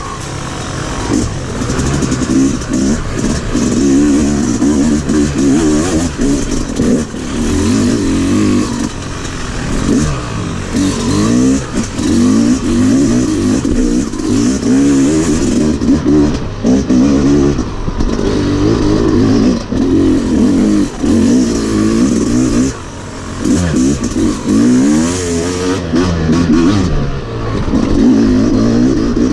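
Dirt bike engine revving hard on a trail ride, its pitch climbing and dropping every second or two as the throttle is worked, with a brief easing off about three-quarters of the way through.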